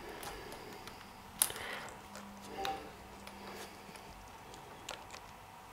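Small plastic clicks and taps of 3D-printed cable-chain links being handled and pressed together, with a sharper click about one and a half seconds in.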